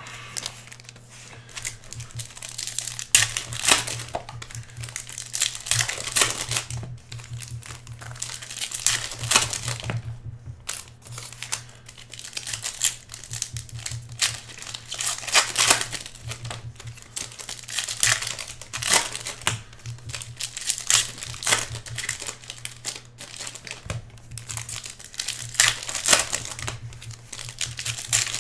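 Foil trading-card pack wrappers being torn open and crinkled by hand, in irregular crackling bursts every second or two, over a steady low hum.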